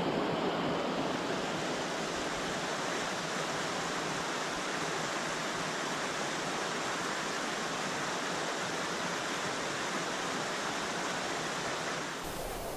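Steady rushing of flowing water, like a stream or waterfall, with no breaks; it changes abruptly near the end.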